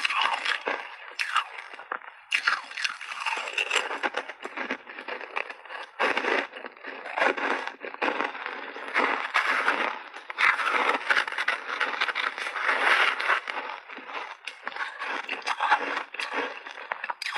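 Close-up crunching and chewing of big mouthfuls of purple shaved ice coated in milk powder: a dense run of crackling crunches, picked up by a clip-on microphone.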